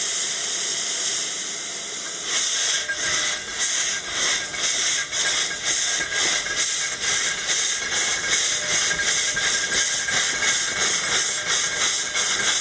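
Cog-railway steam locomotive working slowly, with steam hissing out around its cylinders. About two seconds in, the steady hiss turns into rhythmic puffs of steam, about three a second.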